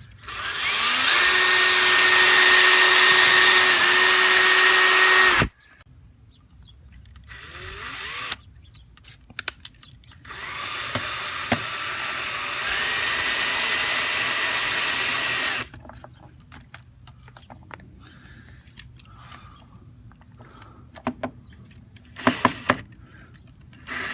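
Power drill boring a pilot hole for a mounting screw: a steady whine that winds up and runs for about five seconds, then a second, quieter run of about five seconds, with a few clicks near the end.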